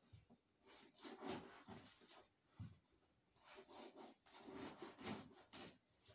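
Faint rustling and rubbing from hands handling and tearing a loaf of bread at the table, in a series of short, irregular strokes.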